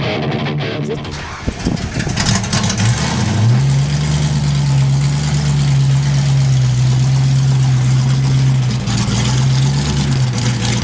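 Ford Mustang GT's 5.0 V8 starting and settling into a steady idle through its newly overhauled exhaust. The idle pitch dips and recovers a few times. Music fades out as the engine catches.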